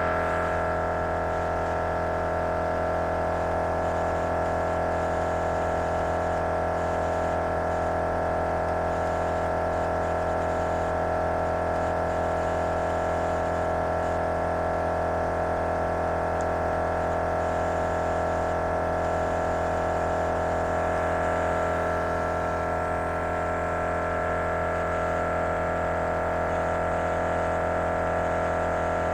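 MORRflate dual portable air compressor running steadily, a constant even drone as it inflates all four tires at once through its hose manifold.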